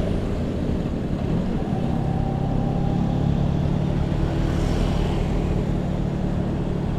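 Vespa P150S scooter's single-cylinder two-stroke engine running while the scooter is ridden through traffic, heard from the rider's helmet camera. The engine note grows stronger about two seconds in and then holds steady.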